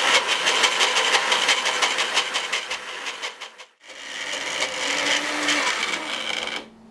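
Magic Bullet personal blender's motor running in two pulses as the cup is pressed onto the base, churning a thick pesto of basil, sunflower seeds, parmesan and oil. It cuts out briefly a little past halfway, runs again, then stops near the end.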